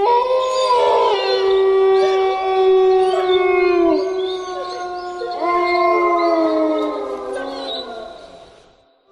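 Wolves howling in chorus: several long, overlapping howls at different pitches, some sliding down in pitch. A fresh howl rises in about halfway through, and the chorus fades away near the end.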